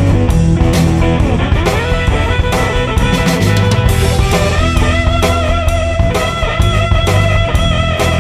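Rock music: guitar playing sustained lead notes that bend and waver, over bass and a drum kit.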